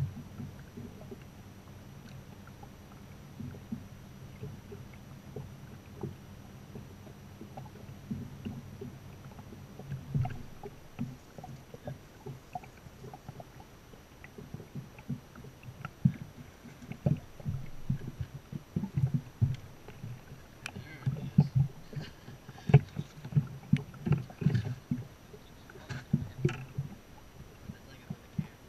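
Knocks and thumps on a bass boat's carpeted deck and hull over a steady low hum. They start about ten seconds in and grow denser and louder while a largemouth bass is fought and landed, with sharper clicks mixed in near the end.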